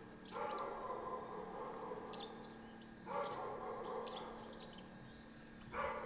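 Three animal calls, each starting suddenly and fading over a second or so, spaced about two and a half seconds apart, with faint short high bird chirps scattered between them.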